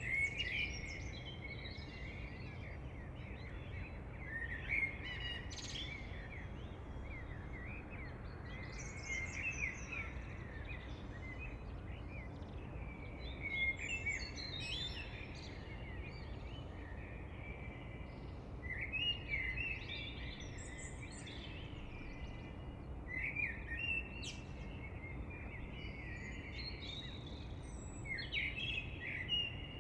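Songbirds chirping and singing in short bouts every few seconds, over a steady low background rumble.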